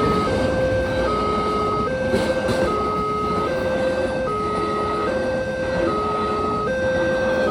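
Railway level-crossing warning alarm sounding an electronic two-tone siren that swaps between a lower and a higher note about every 0.8 seconds, warning that a train is coming and the barrier is closing. Steady road-traffic noise runs underneath.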